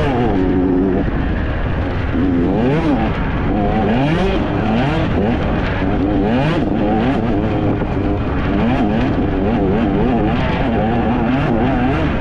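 Off-road dirt bike engine ridden hard, revving up and falling back over and over, its pitch climbing and dropping every second or so with the throttle and gear changes.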